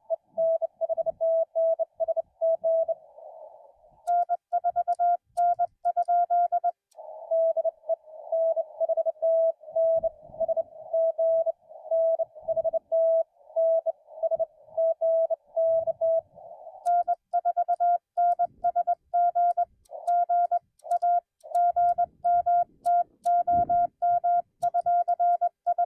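Morse code (CW) tones of a ham radio contact, keyed on and off in steady bursts. The two sides of the exchange alternate: a slightly lower, fuzzier tone, then a cleaner, slightly higher tone with faint clicking, switching back and forth about 4, 7 and 17 seconds in.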